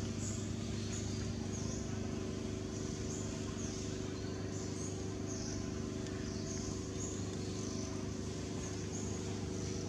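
Steady low hum of an idling engine, made of several even tones that hold constant throughout. Over it, a short high chirp repeats about every two-thirds of a second.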